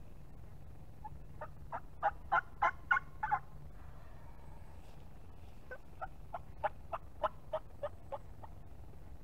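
Turkey yelping: two runs of short, evenly spaced yelps at about three a second. The first run grows louder and then fades, and the second starts about halfway through.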